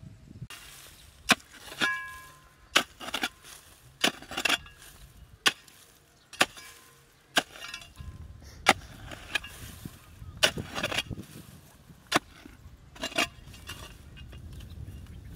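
A digging tool chopping into hard, dry soil: sharp strikes at an uneven pace of about one a second.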